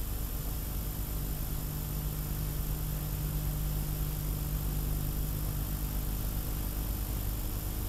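Steady low electrical hum with an even hiss and a faint high-pitched whine: the noise floor of an old analog videotape transfer, with no voice or music over it.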